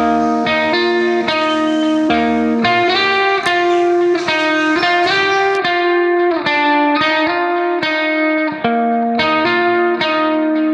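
Background music: a guitar melody of ringing notes that change about every half second to a second.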